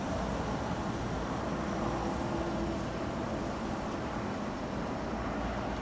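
Steady outdoor background noise: an even low rumble with a faint hiss and hum.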